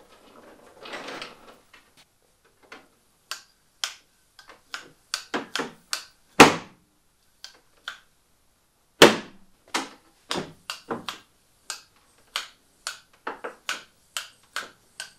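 Pneumatic gear doors of a large RC jet model being cycled by air from a Robart hand pump: a string of light clicks and taps, with two much louder sharp snaps about two and a half seconds apart as the door air cylinders actuate.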